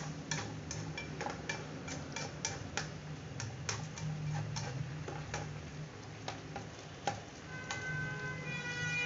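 A spatula tapping and scraping against a wok as vegetables are stirred: light clicks about three a second, thinning out in the second half, over a steady low hum.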